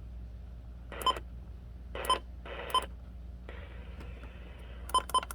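Short electronic beeps over a low steady hum: three single beeps spaced roughly a second apart, then a quick run of beeps begins near the end.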